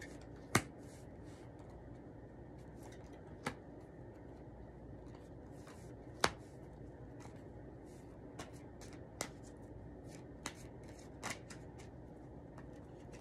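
Tarot cards dealt one at a time onto a felt mat. About seven sharp card snaps come every second or two, the loudest about half a second in and another near six seconds in.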